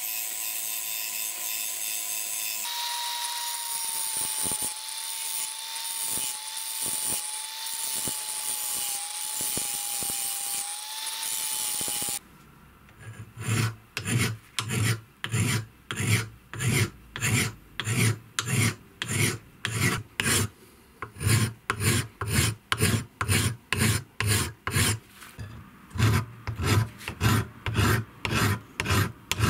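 Angle grinder cutting into a steel knife blank held in a vise, a steady whine that wavers slightly. About twelve seconds in it stops and a flat hand file takes over, rasped back and forth across the steel edge at about two strokes a second.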